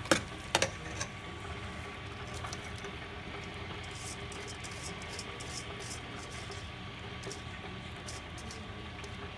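A pot of vegetables, chicken and broth simmering on the stove, a steady bubbling hiss with faint crackles. Two sharp knocks of a utensil against the pot about half a second apart right at the start.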